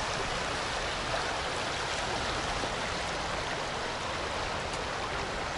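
The Mzymta river flowing: a steady, even rush of water.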